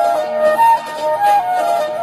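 Background music: a flute-like melody of held notes stepping up and down without a break.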